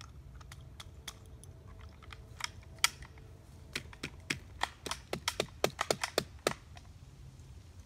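A hand hammer striking repeatedly in sharp knocks. A few scattered blows come first, then a quick run of blows, several a second, that stops about six and a half seconds in.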